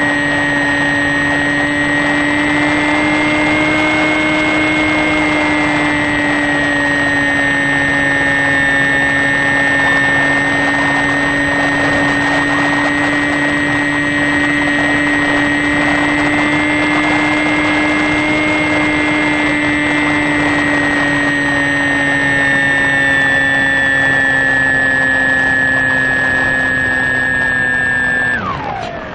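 Electric motor and propeller of a HobbyKing Sky Eye FPV plane, heard from its onboard camera: a steady whine at cruise throttle. Near the end the throttle is cut and the pitch falls away quickly as the motor spins down.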